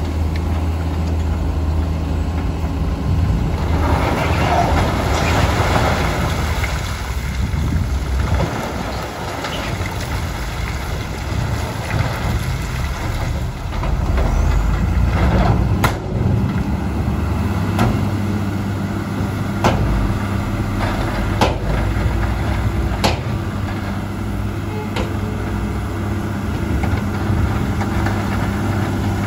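Dump truck's diesel engine running steadily while its raised bed tips out a load of broken rock; the stones rumble out in a surge a few seconds in, followed by several sharp knocks of rock striking rock.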